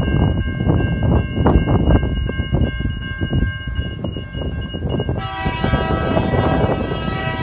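Diesel locomotive horn sounding one long blast about five seconds in, from the ore train approaching in the distance. Before it there is a low, uneven rumble and a few faint steady high tones.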